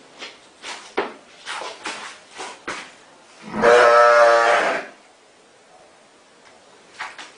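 A sheep bleating: one long, loud bleat about halfway through, after several short knocks and scuffs.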